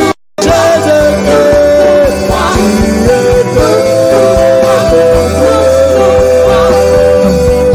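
Christian worship song: a voice holding long, wavering notes over a band with bass and a beat. The music drops out for a split second right at the start.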